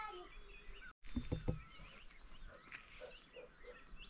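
Faint animal calls: a few short low sounds just after a brief dropout about a second in, then scattered high, gliding chirps.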